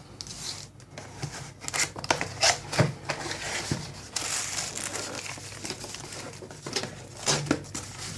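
Keyboard box packaging being opened by hand: irregular crinkling, rustling and tearing with scattered sharp clicks, denser for a couple of seconds midway.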